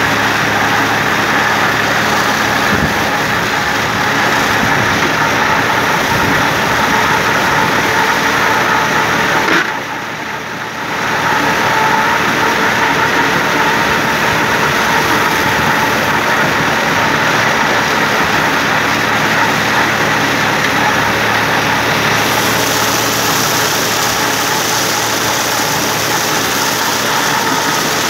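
Tümosan 5275 tractor running under load while its Türkay drum mower spins and cuts standing triticale: a loud, steady mechanical din. It dips briefly about ten seconds in.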